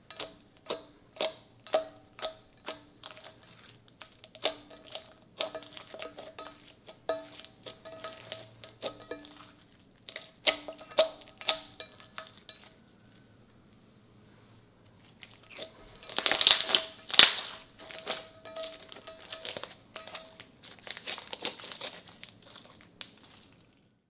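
Hands poking, squishing and stretching clear slime, making sharp wet pops and clicks. At first they come about two a second, then in irregular runs, with the loudest burst about two-thirds of the way in.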